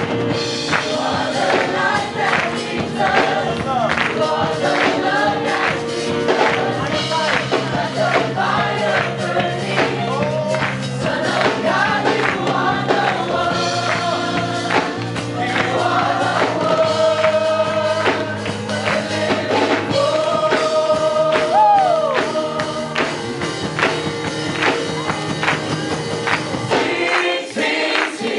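Church choir of mixed voices singing a gospel song, a man leading on a microphone, over a band with bass and steady percussion; the band drops out near the end, leaving the voices.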